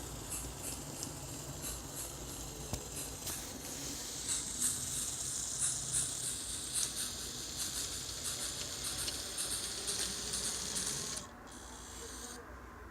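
Sound decoder in an N-scale model of a Renfe 140 steam locomotive playing steam chuffs over a steady hiss, about two to three chuffs a second. The steam sound cuts off suddenly about eleven seconds in.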